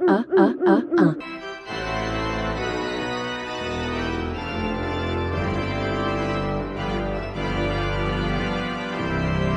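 A quickly repeated, wobbling cartoon sound effect for about the first second, then organ music playing held chords.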